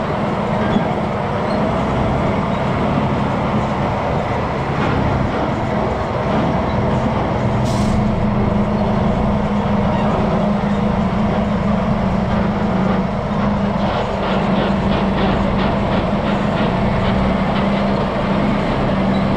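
Diesel engine of a logging truck running steadily under way, with a constant low drone and light rattling.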